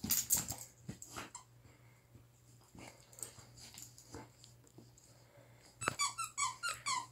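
Dog chewing and gnawing on a squeaky toy, with scattered short chewing noises, then a quick run of high squeaks near the end as the toy is bitten over and over.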